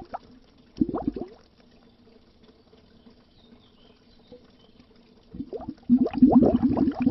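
Underwater bubbles gurgling in a dense, rapid stream. The stream cuts off just after the start, gives one short burst about a second in, goes faint for about four seconds, then starts up again about five and a half seconds in.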